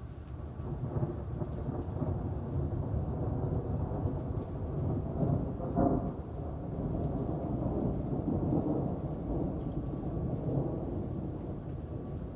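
Rolling thunder rumbling over steady rain, swelling about a second in, with a sharper crack about six seconds in, then slowly easing off.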